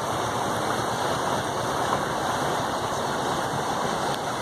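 Steady rushing noise of rain and water over a flooded highway.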